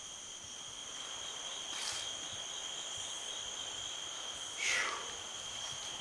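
Insects trilling steadily, one continuous high-pitched tone. A short noisy swish falling in pitch sounds a little before the five-second mark, with a fainter one about two seconds in.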